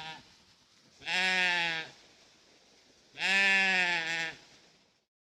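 Goat bleating: the tail of one bleat, then two long, steady bleats about a second and a half each, with a short gap between them.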